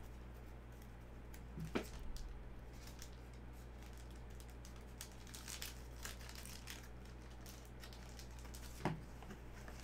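Soft crinkling of a clear plastic card sleeve and the rustle of trading cards being handled, with light clicks and two sharper taps, one about two seconds in and one near the end. A low steady hum runs underneath.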